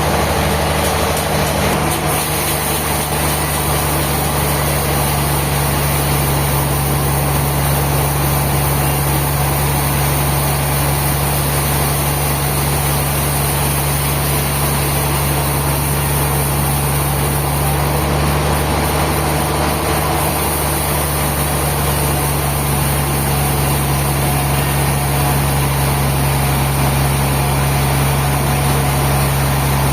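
Sawmill machinery running steadily, an engine's constant low drone with no change in pitch.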